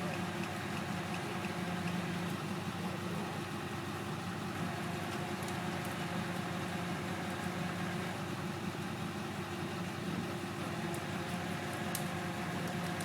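Duramax diesel engine of a tow truck idling steadily.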